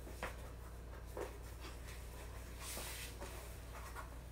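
Faint rustling and scuffing of a shoe being pulled on by hand, with a few soft knocks and a steady low hum underneath.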